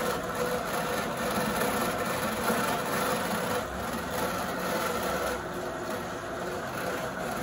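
Brother continuous rover, an electric wool-roving machine, running steadily: its motor, steel drafting rollers and chain drive turning as fibre is drawn through, giving an even mechanical hum with a few held tones.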